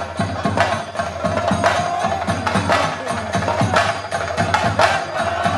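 Theyyam ritual drumming and percussion beating a steady rhythm, about two strong strikes a second with lighter ones between, over a sustained wavering tone.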